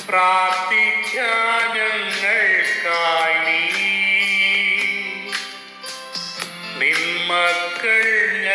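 Devotional song: a singer's voice carries long phrases that bend in pitch, over steady instrumental accompaniment and a regular percussion beat.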